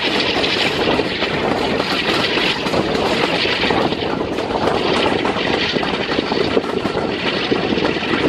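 A diesel-hauled train running at speed, heard from a coach window: a steady rush of wind past the microphone that swells and fades every second or so, over continuous wheel-on-rail rumble and clatter.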